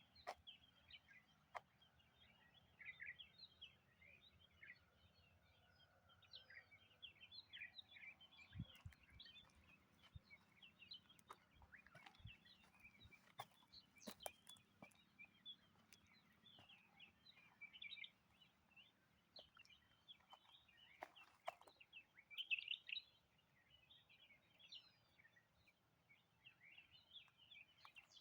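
Faint forest birdsong: many short chirps and twitters from several birds, overlapping, with a few soft clicks now and then.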